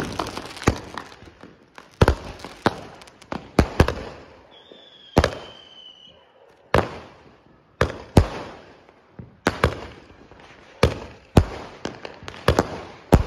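Multi-shot aerial fireworks box (cake) firing shot after shot into the sky, a sharp bang about once a second and now and then two in quick succession, each trailing off. A short whistle falls slightly in pitch about a third of the way in.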